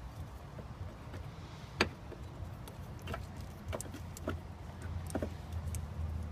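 Scattered sharp clicks and taps of a metal mounting bracket knocking against the motorcycle's plastic body panels and frame as it is worked into place by hand, the loudest about two seconds in, over a low steady background hum.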